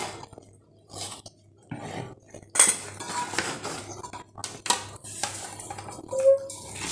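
Metal spoon scraping and knocking against a stainless steel bowl while stirring a thick, crumbly mix of flour and jaggery syrup, in irregular strokes.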